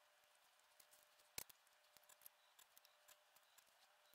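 Faint, scattered light clicks and ticks of a circuit board being handled and worked with a soldering iron, with one sharper click about a second and a half in.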